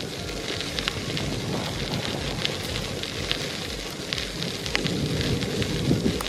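Bicycle tyres rolling over a fine gravel trail, a continuous crunch with many small scattered pops and crackles, over a low rumble of wind on the microphone.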